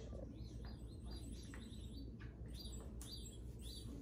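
Faint, high-pitched bird chirps, short and repeated a few times a second, over a low steady hum.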